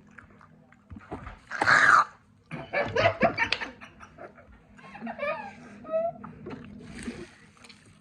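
Girls laughing and making wordless vocal reactions while tasting a jelly bean, with a loud breathy outburst about two seconds in.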